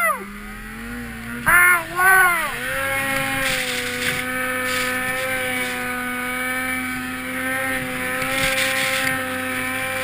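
Ski-Doo Summit XP snowmobile's two-stroke engine revving in quick blips that rise and fall in pitch, then running at steady revs as the sled pulls through deep powder.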